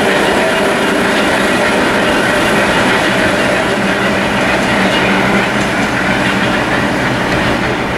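Heritage subway train with wooden BU gate cars running through on the rails and moving away: a loud, steady rolling noise of steel wheels on track.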